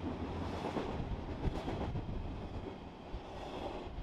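Intermodal freight train's cars rolling along the track: a steady rolling rumble with scattered knocks from the wheels.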